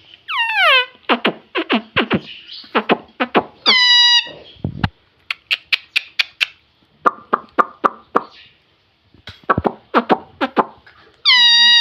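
Indian ringneck parrot vocalising: two loud, shrill squawks, one about four seconds in and one near the end, with a falling whistle at the start and quick runs of clicks and chirps in between.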